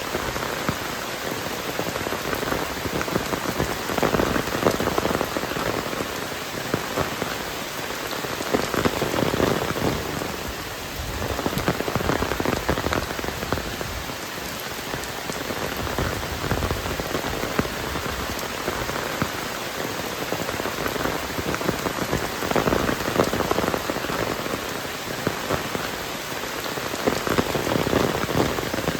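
Heavy rain falling, a dense patter of drops that swells and eases every few seconds.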